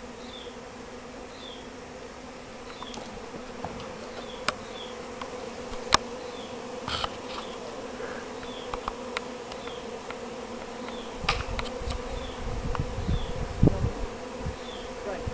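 A clustered honeybee swarm humming steadily, the low buzz of many wings. There are a few sharp clicks, and low rumbling comes in over the last few seconds.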